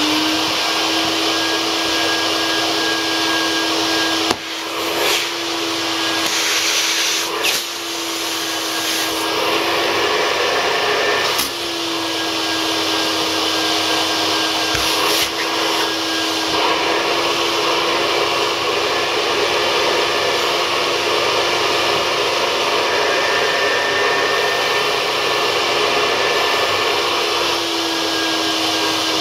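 Nilfisk GM80 canister vacuum cleaner running steadily, with a full dust bag, its motor giving a constant whine over the rush of air. In the first dozen seconds its pitch and level shift briefly a few times, with small knocks, as socks are drawn against the hose.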